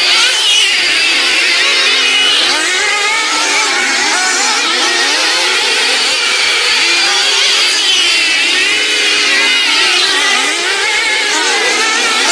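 Several small racing engines running at once, each revving up and down so their pitches rise and fall across one another.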